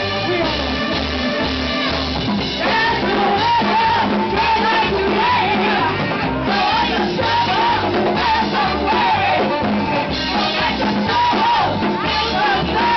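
Live band with a woman singing lead over saxophone, accordion and drums. Held instrument notes open the passage, and the sung melody comes in about two and a half seconds in over a steady drum beat.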